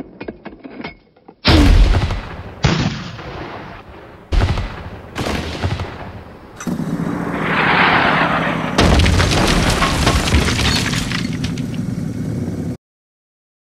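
Sound-effect artillery fire: four sharp cannon shots in the first half, each dying away in a rumble. Then a steady low drone with a rushing swell, another loud blast on top of it, and everything cutting off suddenly near the end.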